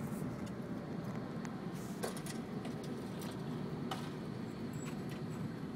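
Steady road and engine noise of a car driving, heard from inside, with a few scattered clicks and rattles.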